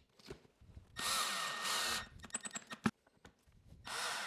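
Cordless drill driving pocket-hole screws into plywood: the motor runs for about a second, a few sharp clicks follow, then it starts again near the end.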